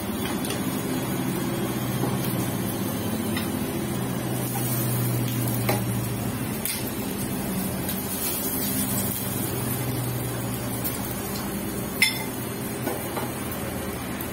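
Tandoori chicken pieces being lifted out of a metal kadai into a bowl: light scraping and occasional clinks against the pan, with a sharp knock about twelve seconds in, over a steady low hum.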